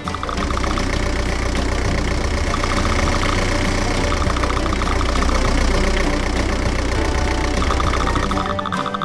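Heavy truck engine running steadily with a low rumble, the engine sound for the dump truck driving in; it cuts out near the end.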